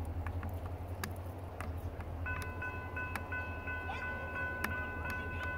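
Railroad grade crossing warning bell starts ringing about two seconds in, a steady high chime made of several tones, over a low steady rumble and scattered faint ticks.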